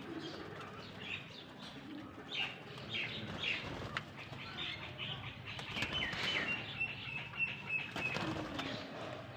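Captive doves flapping their wings, with many short high chirps from birds.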